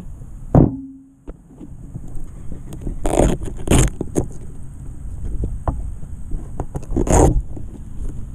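FPV quadcopter in flight, heard through its onboard GoPro: wind buffeting and propeller noise. About half a second in there is a quick falling whine that holds a low note briefly, and there are loud rushes of wind at about three, four and seven seconds in.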